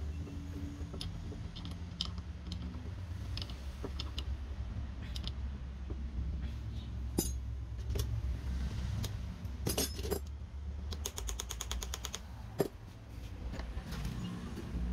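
Metal tools and starter-motor parts clinking and knocking as they are handled, over a steady low hum. Past the middle there is a rapid, even run of ticks, about ten a second, for a little over a second.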